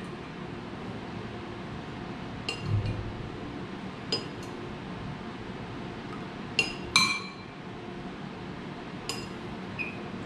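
Metal chopsticks clinking against a ceramic bowl: about seven separate light clinks, each with a brief ringing tone.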